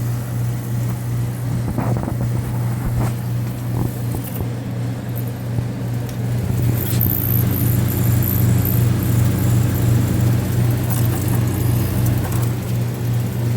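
GE Fashionaire 8,000 BTU window air conditioner running, its compressor giving a steady hum with a rattle of vibration. The compressor does not sound right, and the owner suspects the noise could just be vibration.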